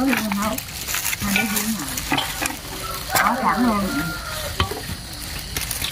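Clear plastic bags and foam takeaway boxes crinkling and rustling in a dense, irregular crackle as rice vermicelli is pulled out and packed by hand.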